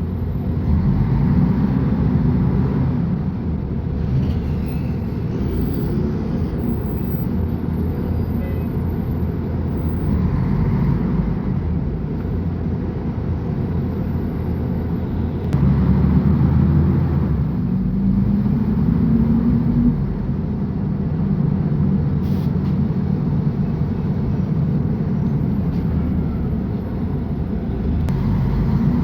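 Mercedes-Benz O500UA bus's diesel engine running under way, pulling harder for the first few seconds and again for about four seconds from just past halfway, where its pitch rises, and easing off in between.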